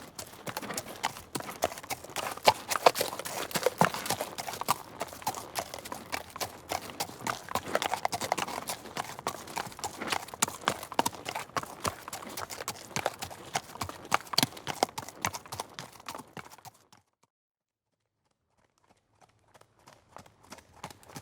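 Horse hooves clip-clopping in quick, dense hoofbeats. They cut off abruptly about 17 seconds in, then after a couple of seconds of silence hoofbeats fade back in and grow louder.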